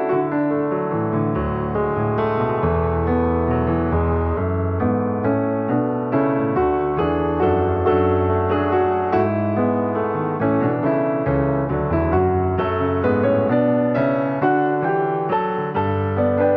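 Piano music: a steady flow of notes over held bass notes.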